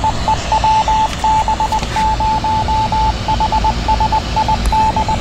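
A ham radio repeater sending its Morse-code identification: one steady tone keyed in dots and dashes, heard through a handheld radio's speaker over a hiss of static. The repeater is answering a test call, which shows that the new glass-mount antenna is reaching it.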